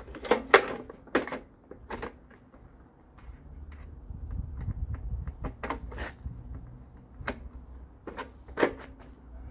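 Plastic top cover being pressed and worked into place on a push-mower engine: a string of sharp clicks and knocks, the loudest about half a second in, with a dull rumble for a couple of seconds in the middle.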